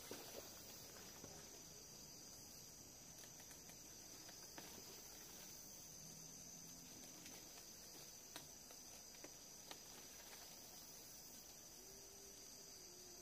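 Faint, steady high-pitched chorus of forest insects, with a few faint knocks scattered through it.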